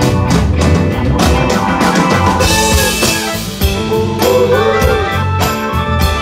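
Live rock band playing: drum kit keeping a steady beat under bass, electric guitar and keyboards, with a cymbal wash about two and a half seconds in.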